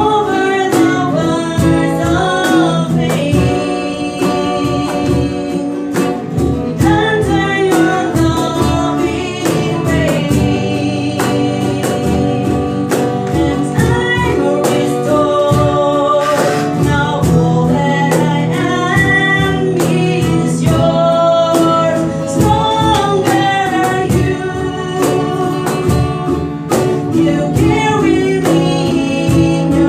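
Several women singing a gospel worship song together, accompanied by strummed ukulele and acoustic guitar, with beatboxed percussion clicking out a steady beat underneath.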